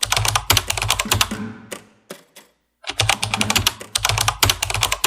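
Rapid run of light, sharp clicks with a typing-like rhythm. It stops for about a second near the middle, then starts again.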